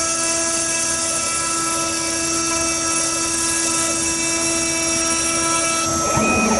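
Small DIY gantry CNC router milling a circuit board: the spindle motor runs at high speed with a steady whine over a hiss. About six seconds in, one of its steady tones stops and the sound briefly changes.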